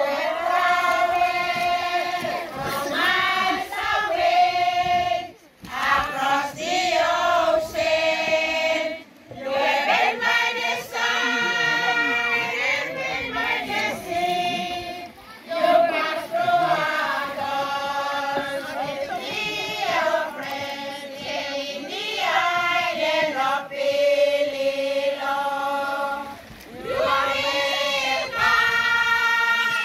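A group of women and children singing together in unison, in long held phrases with brief pauses between them.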